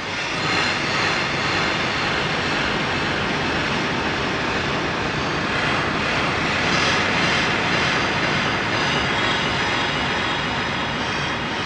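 Dark ambience sound effect: a steady, dense rushing drone with no clear pitch or rhythm, swelling up in the first half second and then holding level.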